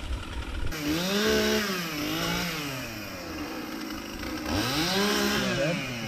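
Chainsaw revving up and back down twice, its pitch climbing and falling about a second in and again near the end.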